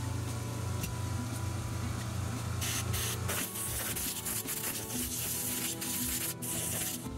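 Compressed-air blow gun hissing in several blasts, the longer ones in the second half, blowing packed dust out of a car's carbon vapour (EVAP) canister.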